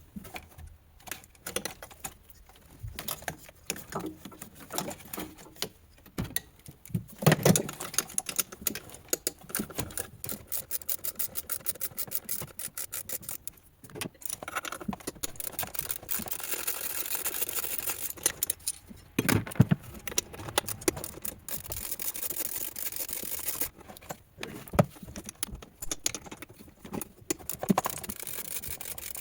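Irregular clicks and metallic clinks, like small parts and hand tools being handled, with a steady hiss that lasts several seconds about midway through.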